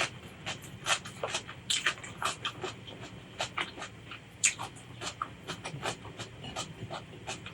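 Close-miked eating: chewing and mouth sounds, a quick, irregular run of short crunching and smacking clicks, several a second.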